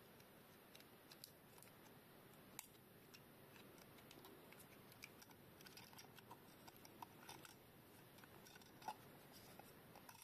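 Faint, irregular small clicks and taps from hands handling a GoPro HERO12 Black camera around its battery and memory card compartment, with a sharper click about a third of the way in and another near the end.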